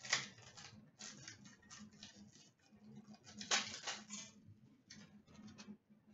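Trading card packs and cards being handled by hand: papery, crinkly rustling in several short bursts, the loudest about half a second in and again around three and a half seconds in.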